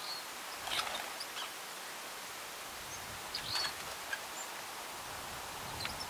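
A few short bird chirps, scattered a second or two apart, over a steady outdoor hiss.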